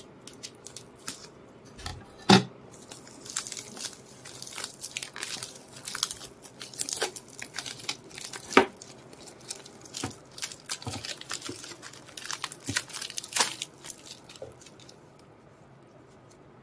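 Plastic shrink wrap being torn and peeled off a paperback book: a long run of crinkling and crackling, with two sharp, louder clicks, one about two seconds in and one about halfway through. The crinkling dies away near the end.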